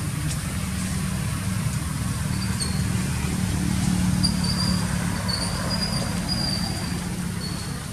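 A steady low engine hum, like a motor idling, runs underneath. Several faint, thin, high squeaks come and go from a few seconds in until near the end.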